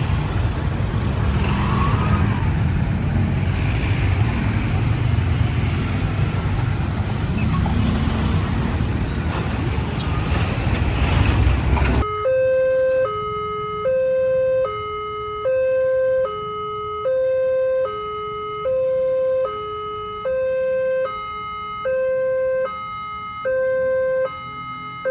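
A loud, low rumbling noise cuts off suddenly about halfway through. It is followed by a railway level-crossing barrier alarm sounding a steady two-tone electronic signal, a higher tone and a slightly lower tone alternating about once every second and a half: the warning that a train is approaching and the barrier is closing.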